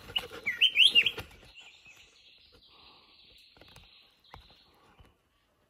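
Black-crested bulbul singing a quick phrase of rising and falling whistled notes in the first second and a half, then a faint steady high hiss with scattered light clicks.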